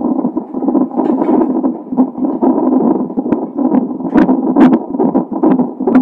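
An unborn baby's heartbeat picked up by a fetal heart monitor: a fast, pulsing whoosh, with scattered sharp crackles in the second half.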